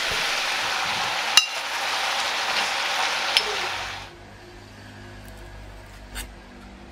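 A steady, loud hiss with two light clicks in it cuts off suddenly about four seconds in. What follows is a quiet low hum with a single clink near the end.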